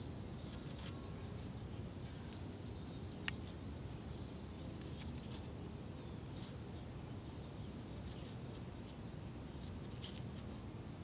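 Outdoor ambience: a steady low rumble with a few faint, short high chirps scattered through, and one sharp click about three seconds in.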